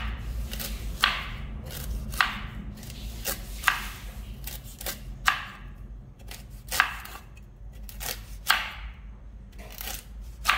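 Knife chopping hard, ripe noni fruit: a run of sharp, separate chops, about one every second or so and unevenly spaced.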